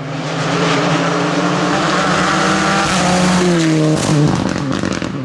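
Rally car coming up at speed and passing, its engine revving high with the pitch shifting as it works through the throttle. The note changes about four seconds in as the car goes by, followed by a run of sharp crackles.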